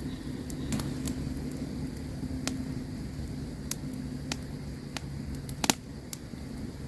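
Campfire crackling, with irregular sharp pops, the loudest a quick double pop near the end. A steady low drone lies underneath.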